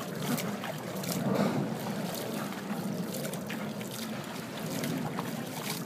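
Pool water sloshing and splashing with a steady rush of wind on the microphone.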